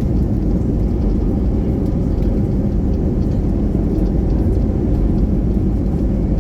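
Steady low rumble inside the cabin of an Airbus A320neo around landing: engine and airflow noise with no distinct events.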